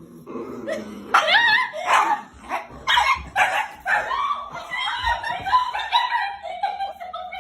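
Dog giving a string of short, high-pitched yips and barks from about a second in, then longer, wavering, whining calls.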